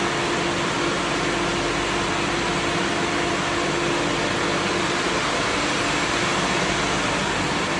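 Steady running machinery: an even rushing noise with a constant mid-pitched hum, unchanging throughout.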